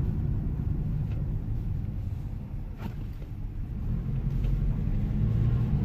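Car engine and road noise heard from inside the cabin while driving: a steady low rumble. About five seconds in, the engine note rises and grows louder as the car picks up speed.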